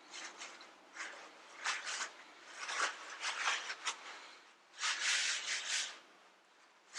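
Irregular rubbing strokes as grease is cleaned off a five-bolt CV axle shaft, with a longer stroke about five seconds in.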